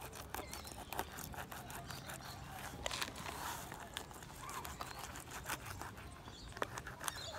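Fillet knife cutting into a redfin (European perch) to gut it on a plastic cutting board: faint scraping and rubbing with many small clicks.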